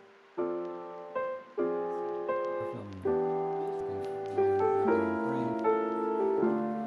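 Background piano music: soft chords struck about once a second, each ringing on and fading.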